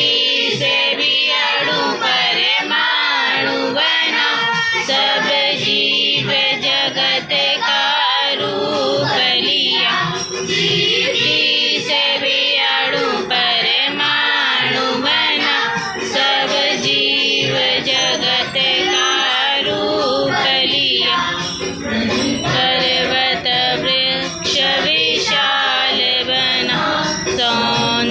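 A prayer sung by several voices together, with music behind it.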